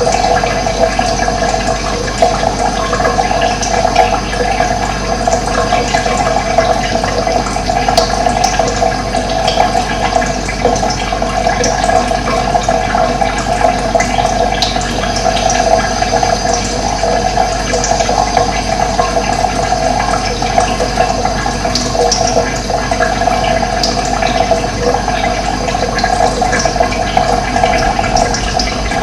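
Running water flowing steadily, a constant rushing splash with no breaks.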